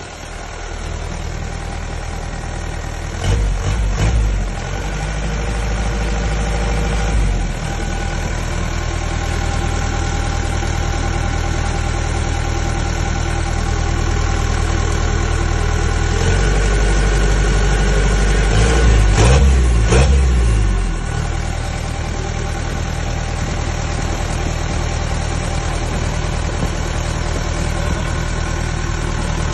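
Kubota DC95 combine harvester's diesel engine running steadily, with two louder, deeper stretches, briefly about three seconds in and longer from about 16 to 21 seconds in.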